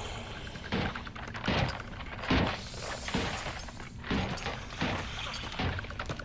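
A run of heavy thuds, about one a second, over a steady low rumbling bed from a TV drama soundtrack.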